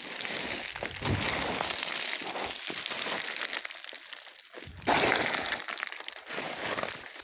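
Footsteps crunching and sliding on loose scree during a steep descent, small stones clattering underfoot. A louder crunch comes about five seconds in.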